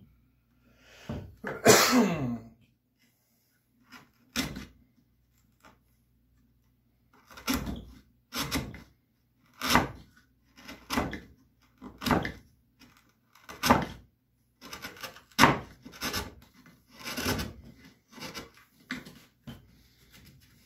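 Hand-carving work on a wooden bass body: a series of short scraping strokes on the wood, about one a second, from about seven seconds in. Near the start a single loud breathy burst stands out as the loudest sound.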